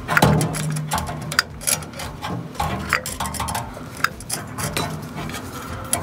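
Irregular metal clinks and taps from fittings and tools being handled at a gas water heater's burner access door and pilot assembly.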